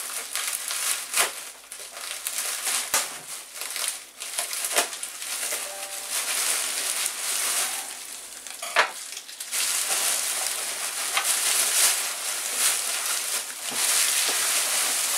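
Plastic bubble wrap crinkling and rustling as it is pulled open by hand, with scattered sharp crackles, the loudest about nine seconds in.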